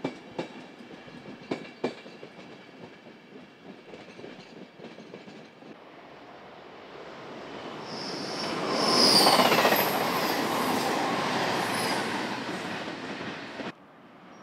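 The tail of a passing express train clicking over the rail joints, then a Virgin Trains express unit approaching and running through at speed. The rush of the train rises to its loudest about nine seconds in, with high whining tones from the wheels on top, and cuts off suddenly near the end.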